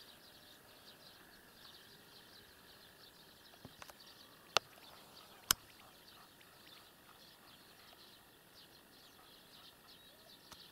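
Quiet field ambience with scattered faint bird chirps, broken by two sharp clicks about a second apart near the middle.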